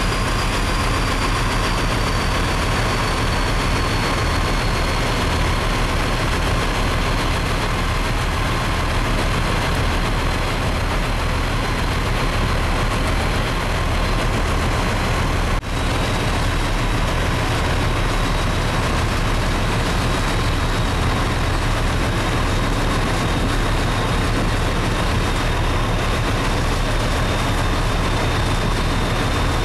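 A ship's engine runs steadily under way, a low pulsing rumble under a broad rush of wind and water noise. A faint high whine slowly drops in pitch, and the sound dips out for an instant just past halfway.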